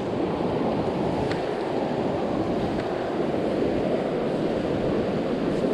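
Small creek running high with spring snowmelt runoff: a steady rush of water.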